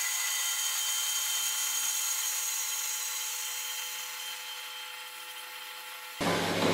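REX Mantis 180WA band saw cutting through a square steel tube on its automatic feed, with the load set to medium. A steady whine of several even tones with hiss, slowly getting quieter, that stops abruptly near the end.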